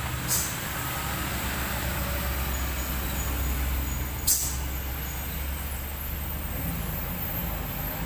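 Large diesel cargo truck's engine running steadily as it approaches and drives past. Two short air-brake hisses come just after the start and again about four seconds in.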